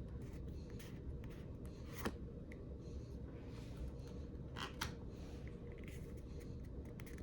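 Faint handling of Pokémon trading cards: a few soft clicks and brief rustles as cards are slid and flipped, over a steady low hum.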